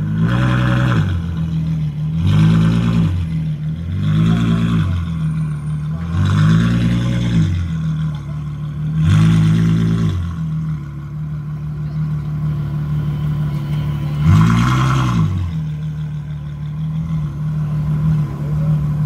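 Ferrari F12berlinetta's 6.3-litre V12 revved in short blips while standing still, about one every two seconds, its pitch rising and falling with each blip. After about ten seconds it settles to a steady idle, with one more rev about fourteen seconds in.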